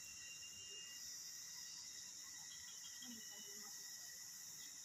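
Faint, steady high-pitched chorus of insects chirring without a break.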